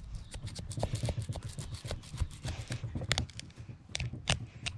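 Knife cutting and scraping through a yellowfin tuna's skin and flesh on a plastic table: a run of small scrapes and clicks, with a few sharper knocks about three seconds in and near the end.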